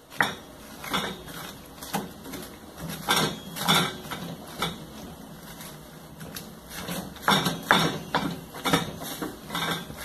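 Wooden spoon scraping and knocking against a stainless steel pan as ground beef is stirred, in irregular strokes, bunched about three seconds in and again over the last three seconds.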